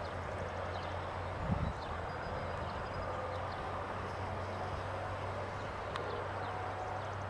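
Diesel engine of a large four-wheel-drive tractor pulling a tillage implement across a field, heard from a distance as a steady low drone. A brief low thump comes about a second and a half in.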